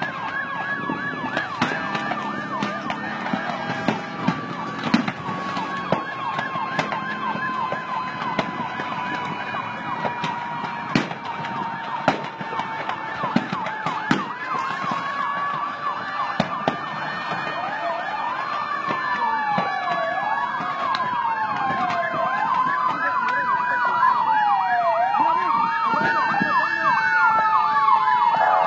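Several emergency-vehicle sirens sounding at once, their overlapping tones sliding slowly up and down, then sweeping up and down faster in the second half. Scattered sharp pops through it.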